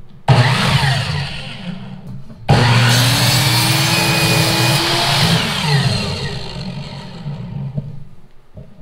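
Mastercraft 10-inch sliding compound mitre saw: the motor starts suddenly and runs down, then starts again about two and a half seconds in and its blade is pulled down through a wooden board for about three seconds. Then the motor is released and the blade spins down, falling in pitch.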